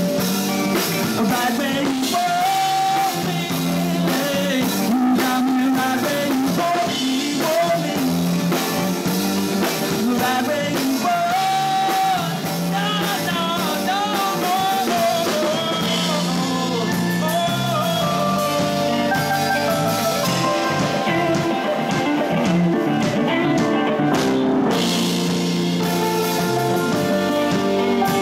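Live rock band playing an instrumental break: a lead line with bent, wavering notes over bass, drums and keyboard.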